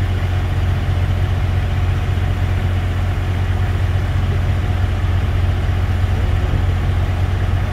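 Heavy construction machinery engine idling steadily, a constant low hum with no change in speed.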